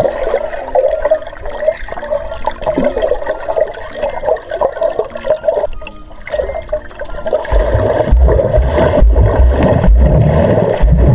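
Water running and splashing, with heavy uneven low rumbles in the second half.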